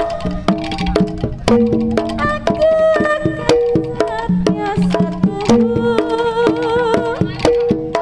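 Javanese jaranan ensemble playing: sharp kendang drum strokes, several a second, over a melody of stepping pitched notes.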